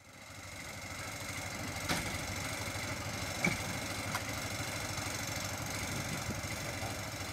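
Fire engine idling: a steady, pulsing low engine rumble with outdoor hiss. It fades in at the start, and a few light clicks come about two, three and a half and four seconds in.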